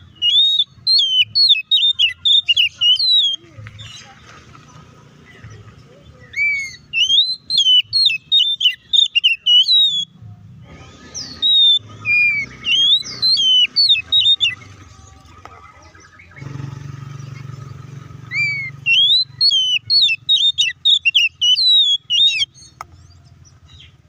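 Oriental magpie-robin (kacer) singing in four bursts of fast, varied whistled notes, each a few seconds long with short pauses between. This is the fired-up song used as a lure (pancingan) to rile other magpie-robins into answering.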